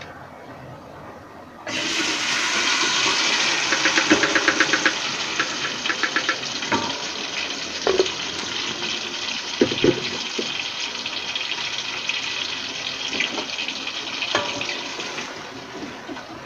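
Blended chilli spice paste hitting hot oil in a stainless steel stockpot: a sudden loud sizzle about two seconds in, with crackling, that carries on steadily and dies down near the end. A few sharp knocks sound against the pot along the way.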